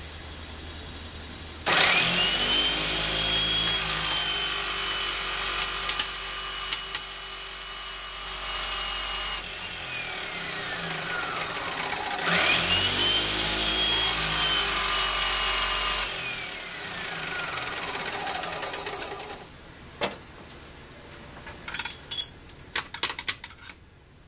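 Electric hydraulic pump powering a hard drive crusher: the motor starts with a whine that rises and holds steady for about eight seconds as the ram crushes a hard drive, then winds down. It starts again for about four seconds and winds down once more. Sharp clicks and rattles near the end as the crushed drive is handled.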